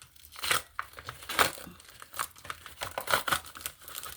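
Packaging of a small parcel of nail stickers crinkling and tearing as it is opened by hand: irregular rustles and crackles, loudest about one and a half seconds in.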